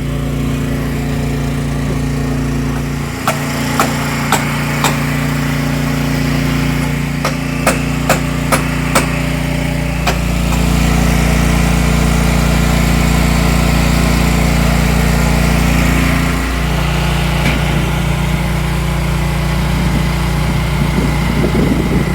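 A small engine running steadily, its pitch and load shifting about ten and again about sixteen seconds in. Sharp knocks come between about three and nine seconds in.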